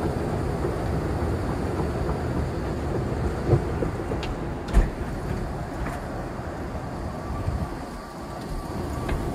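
Steady low rumble of Schindler 9700 escalators running, with two sharp knocks about three and a half and five seconds in.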